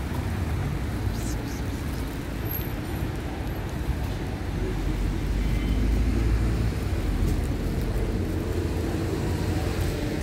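Steady low rumble of street traffic, swelling a little midway.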